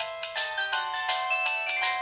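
Ringtone playing on a 2004 LG VX3200 cell phone: a synthesized tune with several notes sounding at once over a steady, clicky beat.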